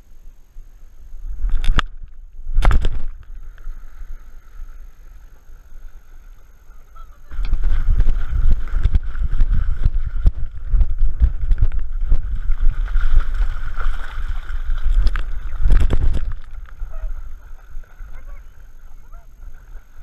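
Lake water splashing and churning around a dog as she wades and swims, picked up by a GoPro in its housing on her back. Two short splashes come about two seconds in, then a long stretch of heavy churning from about seven to sixteen seconds. A faint steady whine runs underneath.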